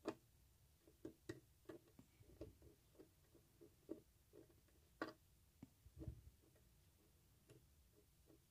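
Faint, irregular small clicks and taps of a pointed steel wire prodding and scraping at a kettle's plastic base connector, tamping glued cotton into its gaps; the sharpest clicks come at the very start and about five seconds in.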